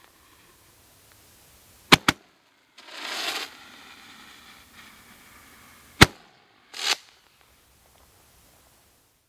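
Crazy Magnum Roman candle firing: sharp pops of its shots about 2 seconds in (two in quick succession) and again about 6 seconds in, each followed about a second later by a short rushing burst from the shot in the air.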